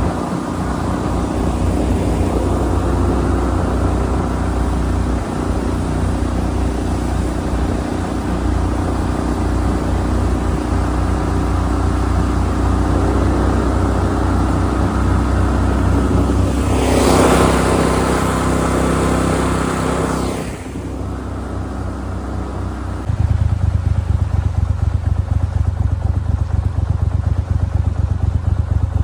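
Boat motor running steadily under way, with a loud rushing hiss for about three seconds past the middle. Near the end the engine note drops to a lower, steadier hum.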